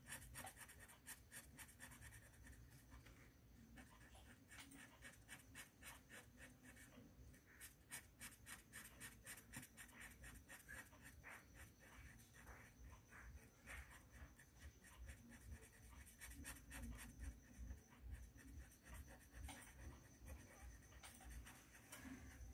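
Faint, quick scratching of a wax crayon colouring in a paper colouring-book page, several short strokes a second.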